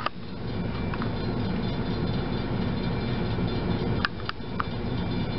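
Freight train's diesel locomotives rumbling steadily as the train pulls slowly away through a grade crossing, heard from inside a car. A few short sharp clicks about four seconds in.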